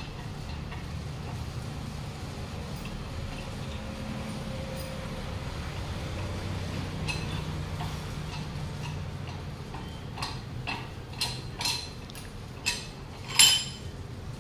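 Metal tool clinking against the screw clamp of a tyre vulcanizing press as it is worked tight, about six sharp knocks in the last few seconds, the last the loudest, over a low steady hum.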